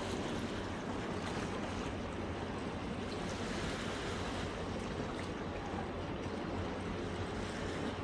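Seawater lapping and washing against the harbour's rocky edge in a steady rush, with a faint low hum beneath it.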